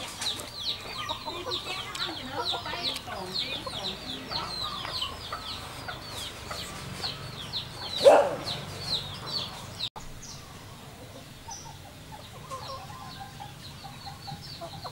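Chickens in a yard: a fast, steady run of high cheeping, with one much louder, lower call about eight seconds in. After an abrupt cut at about ten seconds, only fainter bird calls remain.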